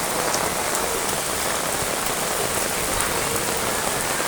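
Heavy rain pouring steadily onto surfaces, a dense even hiss with scattered drop impacts.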